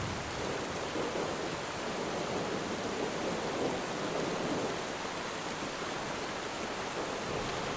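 Steady rain falling on water, with a rumble of distant thunder swelling through the first half or so and fading out.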